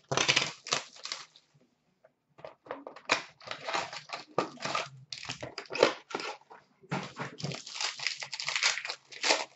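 Packaging of a hockey card box being torn open and a foil card pack handled: irregular crinkling and tearing, with a short pause about two seconds in.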